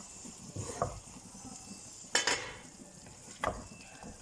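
Okra being stirred in a pan on low heat: a few short scrapes and clacks of a cooking utensil against the pan, the loudest about two seconds in, over faint sizzling.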